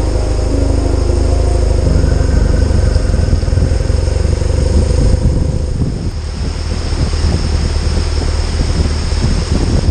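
Motorcycle engine running with a steady low rumble, mixed with wind rush over the microphone while riding.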